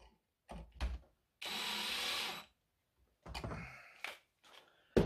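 Light knocks of a screwdriver and wire being worked at a 12-volt fuse box's grounding terminal. A steady hiss lasting about a second comes about a second and a half in, and there is a thump near the end.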